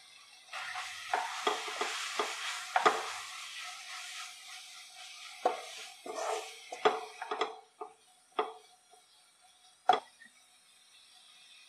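Wooden spatula stirring and scraping sauced vegetables around a sizzling nonstick frying pan, with many quick knocks against the pan. After about seven seconds the sizzle dies down and only a couple of single taps follow.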